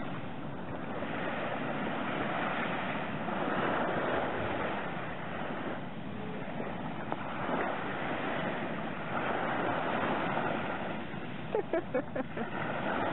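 Small waves lapping and washing up on a sandy beach, the wash swelling and easing every few seconds, with a few short pitched sounds about two-thirds of the way through.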